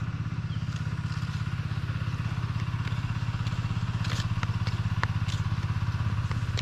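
A small engine running steadily at a constant speed, a low, even, rapidly pulsing hum, with a few faint clicks about four and five seconds in.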